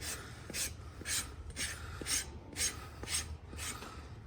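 Farrier's rasp filing a horse's hoof in steady back-and-forth strokes, about two a second, levelling the trimmed foot.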